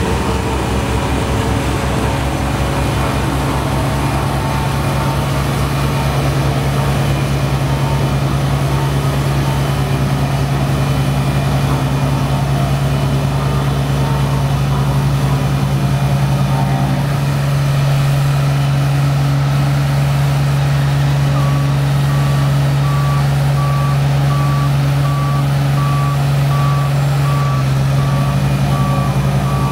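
Small Cat CB14B tandem asphalt roller running with a steady diesel hum. Its note shifts a little past halfway. In the last third a reverse alarm beeps about twice a second.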